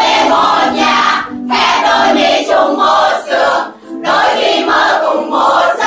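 A group of students singing and shouting along together loudly to a song playing in the room, their phrases breaking off briefly twice.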